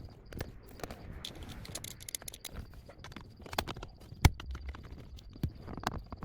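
Irregular clicks and knocks of screws and a screwdriver being worked while the radio head unit is fastened back into the dash, with one louder knock about four seconds in.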